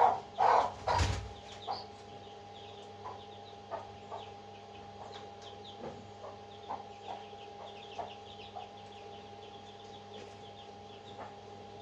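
Young birds calling with many short, high chirps over a steady electrical hum. A few louder calls and a knock come in the first second or so.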